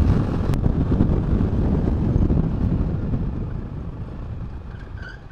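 Wind rumbling on an SJCAM SJ6 external microphone over a Rusi SSX200 motorcycle riding at road speed, fading out over the last couple of seconds. A single sharp click sounds about half a second in.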